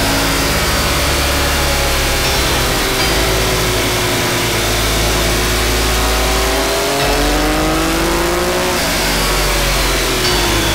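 Triumph Daytona 675 inline-three engine with a Devil Rocket aftermarket exhaust. Its pitch sinks over the first few seconds, then climbs steadily as it revs up, and drops sharply about nine seconds in.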